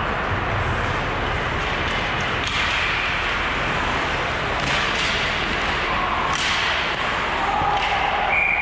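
Ice hockey play in a rink: skates cutting and scraping on the ice in several sharp strokes, with sticks and puck knocking, over the steady hum of the arena.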